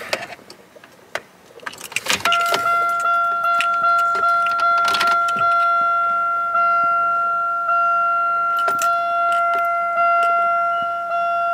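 A few sharp key clicks, then the 2000 Buick Century's warning chime starts about two seconds in and dings steadily, a little more often than once a second, each ding fading before the next.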